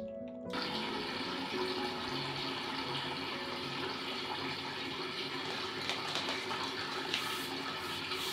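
A steady rushing hiss that starts abruptly about half a second in and cuts off suddenly at the end, with faint background music beneath it.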